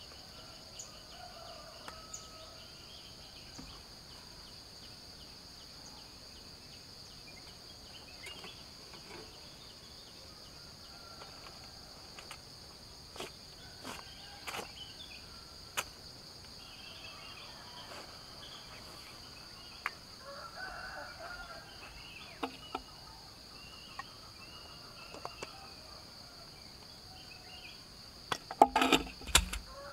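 Steady high drone of insects, with scattered knocks and clacks of camping gear being handled. Near the end comes a quick burst of loud metallic clicks as a gas canister is fitted to a camping stove's hose.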